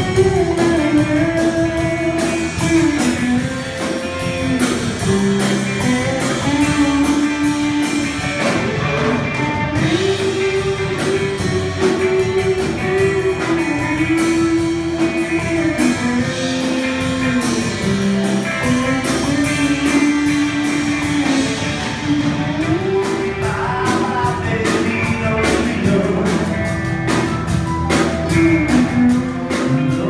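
Live rock band playing with electric guitars, keyboard and drums, a sustained lead melody gliding between held notes over the top.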